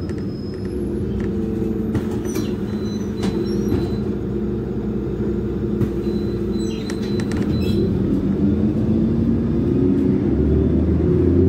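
A Karsan Bredamenarinibus Avancity+ CNG city bus under way, heard from inside the cabin: the steady running of its natural-gas engine with road rumble. A few short clicks and rattles come about two to four seconds in and again around seven seconds in.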